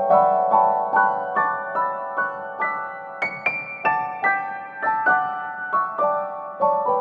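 Background piano music: a gentle melody of single notes played at an even pace, about two to three notes a second, rising to a high point near the middle and then falling back.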